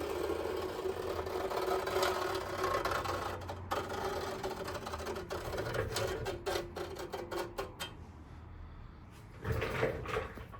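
A small motor running steadily with a low hum, stopping about eight seconds in; a short burst of noise follows near the end.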